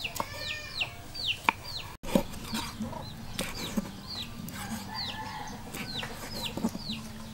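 Large kitchen knife chopping through roasted pork onto a wooden cutting board in irregular sharp strokes, the loudest sounds. Behind them chickens call steadily, repeated high falling peeps a few times a second with some clucking.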